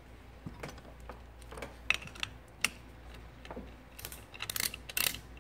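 Ratchet wrench with an 8 mm socket on a bolt of a GY6 157QMJ scooter engine's cylinder head. A few scattered clicks come first as the tool is fitted, then a quick run of ratchet clicks starts about four seconds in as the bolt is loosened.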